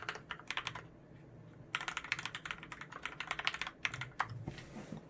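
Typing on a Varmilo VA108Mac mechanical keyboard with Krytox-lubed Cherry MX Red linear switches on a steel plate in a plastic case, GMK keycaps: a short burst of keystrokes, then a fast run of typing in the middle, then a few scattered keys.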